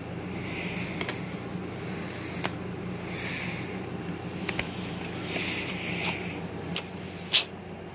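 Plastic DVD box-set packaging being handled: several sharp clicks and short crinkly rustles as the discs in their plastic trays are touched and the fold-out pages are turned, over a steady low hum.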